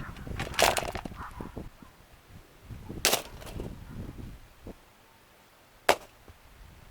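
A plastic Lasko box fan being smashed: three loud sharp impacts with the plastic cracking and rattling, about three seconds apart, the last a single short snap.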